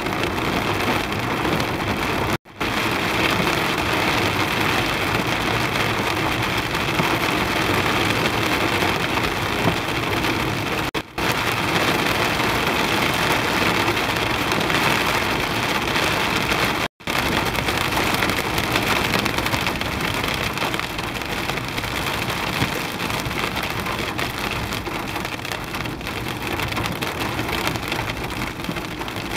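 Heavy rain and hail beating on a moving car's roof and windshield, heard from inside the cabin as a dense, steady hiss. It breaks off for an instant three times.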